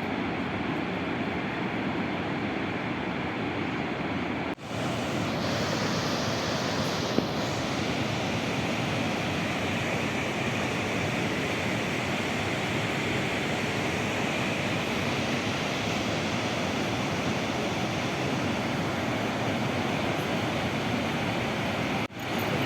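Steady, dense rushing roar of the Iguazu Falls' cascades. The sound drops out for an instant twice, about four and a half seconds in and near the end, then carries on unchanged.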